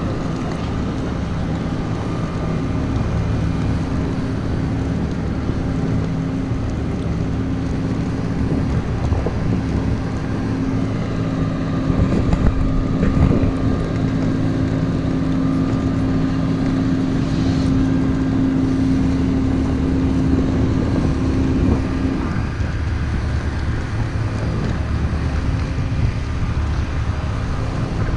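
Steady, loud rumble of a Boeing 737-800's CFM56 engines and airflow heard from inside the cabin, with a steady hum that drops away about 22 seconds in and a few brief knocks about 13 seconds in.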